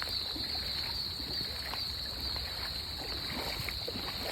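Feet wading through ankle-deep floodwater, with faint sloshes and small splashes, over a steady high-pitched drone and a low rumble.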